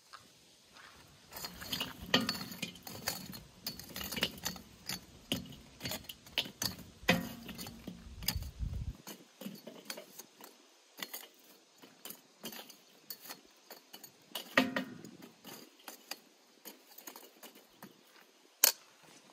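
Irregular clinks, taps and knocks of kitchen utensils, dishes and glassware being handled, busy in the first half over a low rumble that cuts off suddenly about nine seconds in, then sparser single clicks.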